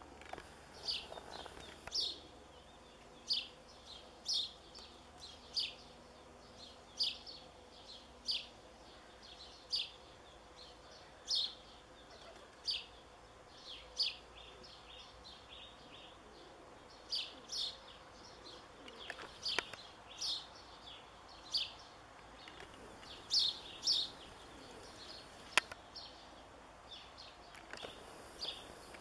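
A small bird chirping over and over, short high notes every second or so, with a faint outdoor background and a single sharp click near the end.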